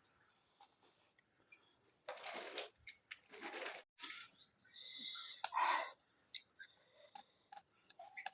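A few short, breathy, hissing mouth noises from a person eating instant noodles, starting about two seconds in, like sharp breaths and slurps between bites.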